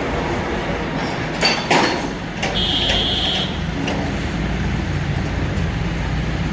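Diesel engine of a hydra mobile crane running steadily, with two sharp metal clanks about one and a half seconds in and a steady high beep lasting about a second near the middle.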